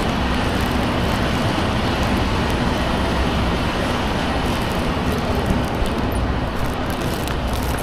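Steady street traffic noise: a constant low rumble of passing vehicles.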